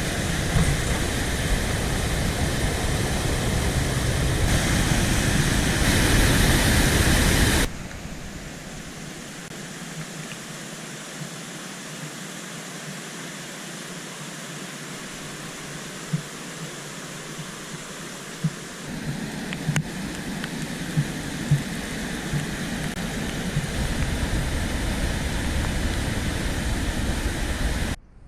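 Aira Force waterfall and its beck: a loud, steady rush of falling water that cuts off suddenly about eight seconds in to a quieter rush, with a few faint ticks later on.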